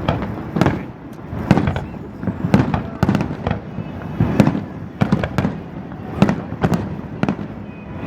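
Fireworks display: a rapid, irregular barrage of aerial shell bursts, several bangs a second, each echoing.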